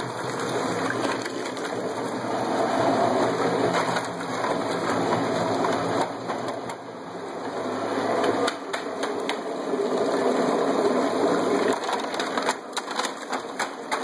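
A 1¼ horsepower garbage disposal running under a homemade cooler margarita machine, churning ice and margarita mix. The grinding swells and eases with a dip about halfway, and clattering knocks come near the end as more ice is poured in.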